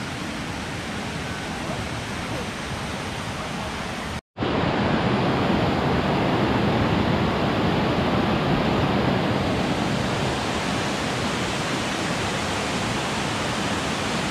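Steady rush of water pouring over shallow stream cascades. The sound cuts out briefly about four seconds in and comes back louder.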